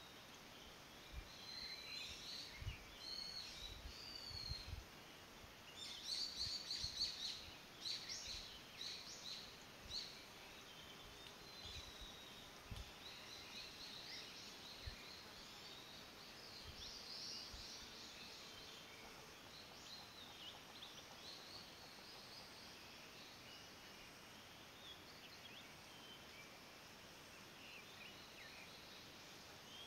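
White's thrush nestlings begging at the nest with rapid, high-pitched chirps as they are fed. The chirping comes in quick clusters, loudest a few seconds in, then thins to scattered calls.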